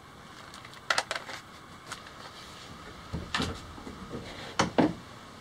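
Scattered clicks and clunks of metal hardware being handled and fitted. There are sharp clicks about a second in, then two louder, deeper knocks later on; the last is the loudest.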